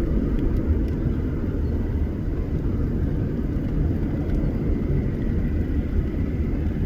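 Steady low rumble of a departing jet airliner's engines.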